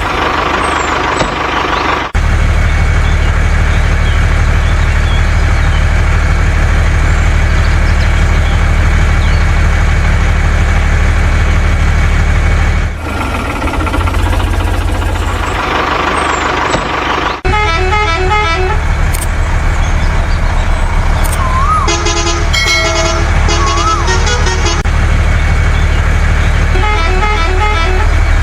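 Heavy vehicle engine sound running steadily, with abrupt cuts where the track is edited. In the second half, quick runs of pitched horn toots sound over the engine, and again briefly near the end.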